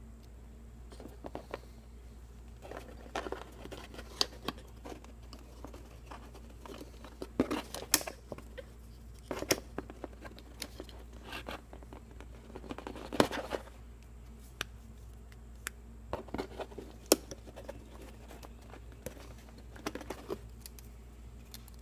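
Hands handling small plastic spring clamps and black frame plates with wire mounts: scattered clicks, taps and short rustles, several sharp clicks standing out, over a faint steady hum.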